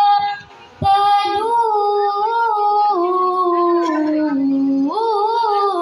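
A child's voice reciting the Quran in melodic tilawah style, holding long notes with wavering ornaments. It breaks for a breath about half a second in, then steps down in pitch and rises again near the end.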